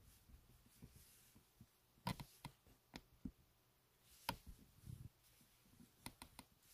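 Near silence broken by a few faint, scattered clicks and taps, with a quick run of four clicks near the end.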